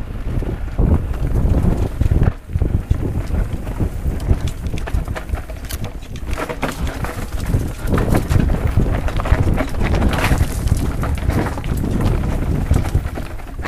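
Wind rumbling on the microphone of a mountain bike riding fast down a rough dirt trail. Irregular knocks and rattles come from the bike jolting over roots and stones.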